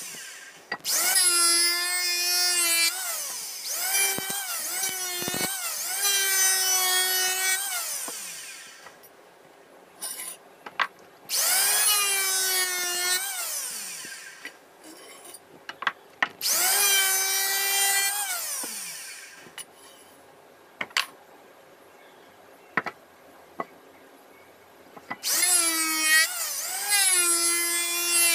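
Electric hand planer shaving a wooden bench leg to even thickness and width, run in several separate passes. On each pass the motor's whine spins up, dips in pitch as the blade bites into the wood, and winds down when it is switched off. Between passes, mostly in a longer pause after the middle, there are a few sharp knocks of the wood being handled.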